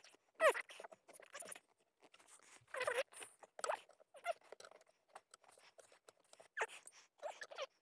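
RAM mount installation noises played back fast: short squeaky chirps with bending pitch and scattered clicks and rattles as the mount's arm is handled and fitted onto its base plate.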